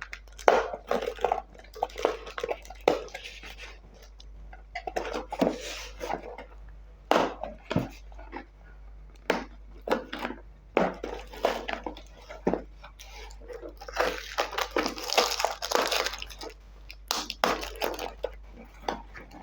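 A small product box being opened by hand, its top cover worked off: repeated short scrapes, taps and rustles of the packaging, with a longer stretch of sliding and rustling about fourteen to sixteen seconds in.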